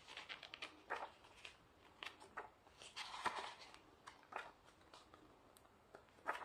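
Faint paper rustles and light taps from a small printed booklet being handled and its pages turned, in a series of brief scattered sounds.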